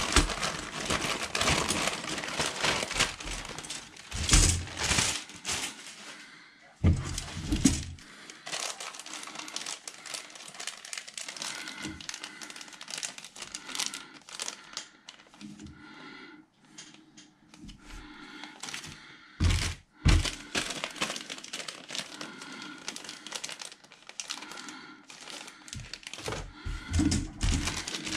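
Thin clear plastic bags crinkling as they are handled and opened, with a few dull knocks along the way.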